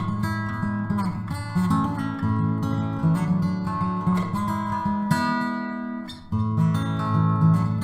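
Acoustic guitar music, strummed chords, which break off briefly about six seconds in and then start again.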